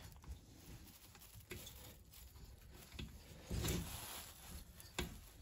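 Faint hand-handling sounds of a two-stroke engine's cylinder being worked down over the piston and rings: a few light metal clicks and a louder scrape a little past halfway.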